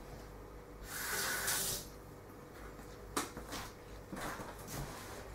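Kitchen tap running briefly, a hiss lasting under a second, as a paper towel is wet at the sink. A sharp click follows, then a few soft knocks and rustles as the wet towel is handled.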